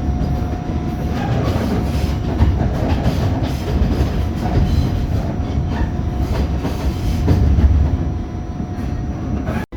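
New York City subway train running on the tracks: a steady, loud rumble and rattle of the moving car with a thin steady whine through it, cut off abruptly near the end.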